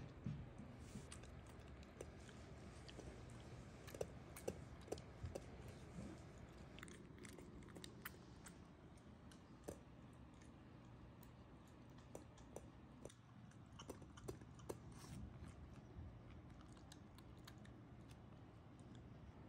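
A Shiba Inu eating vegetables from a stainless-steel bowl: faint, scattered chewing and crunching with small clicks.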